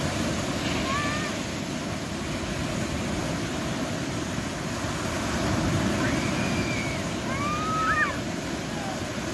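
Ocean surf breaking and washing up onto a sandy beach: a steady rush of waves, with faint high calls of voices a few times over it.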